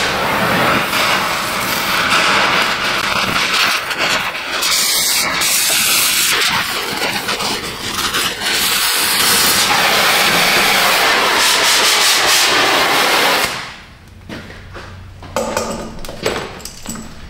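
Cutting torch hissing steadily as it burns through the rusted exhaust pipe. It shuts off about 13 seconds in, followed by a few light metal knocks.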